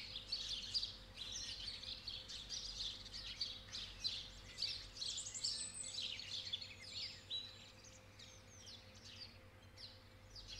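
Small birds chirping and singing in quick, high notes, busiest for the first seven seconds or so and sparser towards the end.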